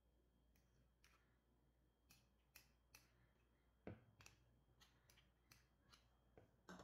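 Faint, irregular clicks of a metal spoon tapping and scraping against a ceramic mixing bowl while semolina is stirred, about a dozen ticks with the loudest about four seconds in.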